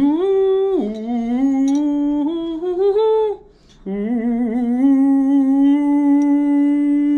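A man humming in two long phrases: the first rises, holds, drops and drifts upward for about three seconds; after a short break, the second holds one steady note for about four seconds.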